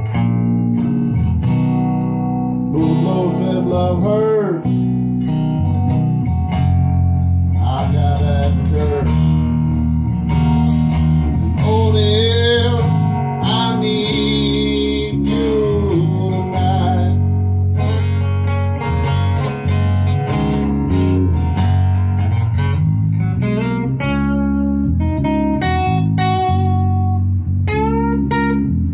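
A song in G played live: a man singing over strummed guitar and an electric bass guitar.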